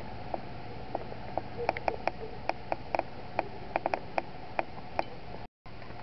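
Calm sea water clicking and plopping among rocks and seaweed at the shoreline: a string of short, sharp ticks at an uneven pace over a steady hiss. The sound drops out for a moment near the end.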